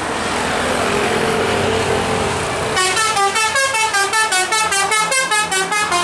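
A coach bus approaching with its engine running. About three seconds in, its telolet multi-tone horn starts playing a fast melody of short notes that step up and down.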